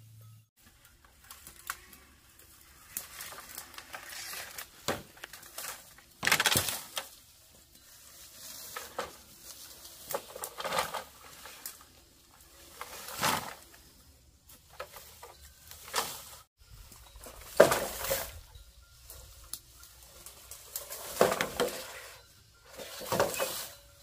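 Irregular scraping and rustling handling noises, about a dozen short strokes spaced one to three seconds apart.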